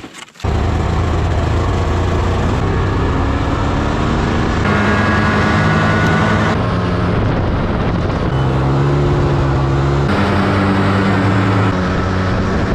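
Snowmobile engine running at speed. Its pitch holds steady, then steps up or down every couple of seconds. It starts abruptly about half a second in.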